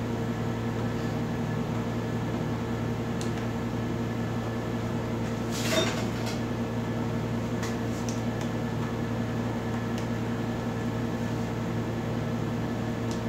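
Steady low electrical hum, with a brief rustle about six seconds in.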